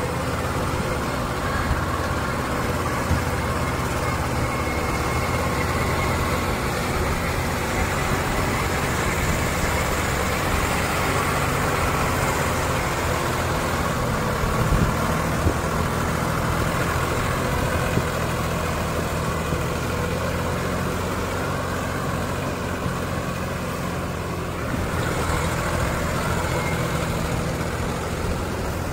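Diesel engines of two tractors, a Mahindra 255 and a Sonalika DI-740, running steadily under load as one tows the other and its overloaded trolley out of deep mud.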